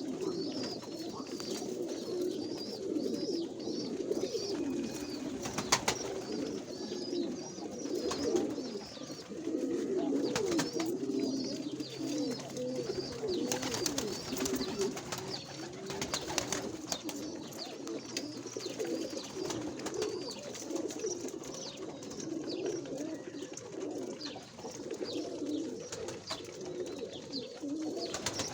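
Many pigeons cooing together without a break, their low calls overlapping, with faint higher chirping above them and a few sharp clicks.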